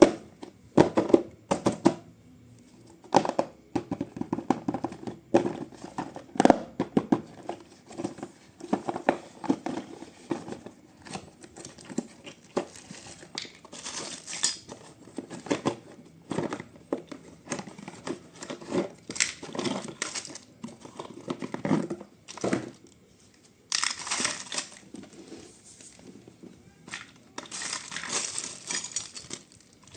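Packaging being handled and opened by hand: irregular crinkling and crackling with sharp clicks, and longer rustling stretches about 24 and 28 seconds in.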